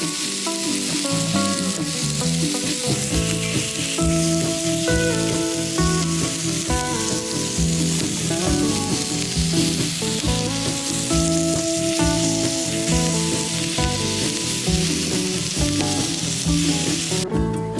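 Food sizzling in a pan, a steady high hiss, under background music with held notes and a regular beat. The sizzle changes abruptly near the end.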